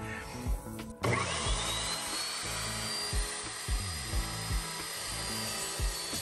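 The motor of an Evolution S355MCS 14-inch cold cut chop saw starts about a second in, its whine rising as the carbide-tipped blade spins up, then running steadily as the blade is fed into round steel tubing. Background music with a steady beat plays throughout.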